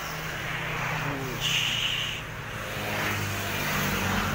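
A low, steady motor hum over outdoor background noise, with a brief high-pitched sound about one and a half seconds in.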